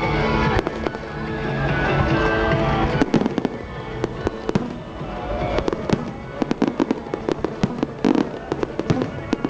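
Pop music playing for a musical fireworks show, with fireworks bursting over it. From about three seconds in, many rapid sharp bangs and crackles take over.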